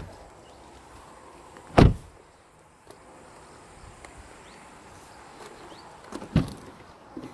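Hyundai i30 car doors shut with a heavy thud twice, about four and a half seconds apart.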